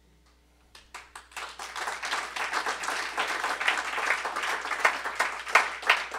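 Audience applauding: clapping starts about a second in, swells quickly into steady applause, with a few louder single claps near the end.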